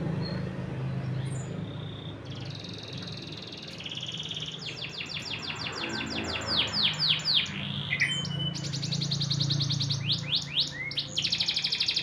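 Black-red canary singing: long rapid trills and rolls, with runs of fast sweeping notes between them, starting about two seconds in. A low steady hum runs underneath.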